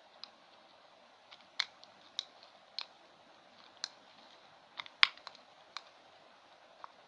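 Spoon stirring slime mixture in a container, tapping and clicking against its sides in irregular sharp clicks, the loudest about five seconds in.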